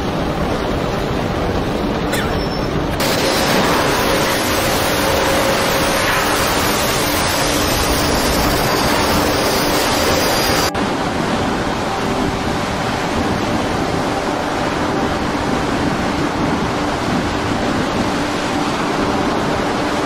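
Loud, steady rushing noise of storm wind and heavy seas breaking over a ship, with a faint steady hum underneath. The sound changes abruptly about three seconds in and again about halfway through.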